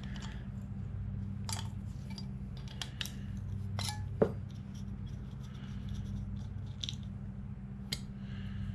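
A wrench clicks and clinks against a small metal carburetor as a nut is worked loose, a few separate short clicks with one sharper ringing clink about four seconds in, over a steady low hum.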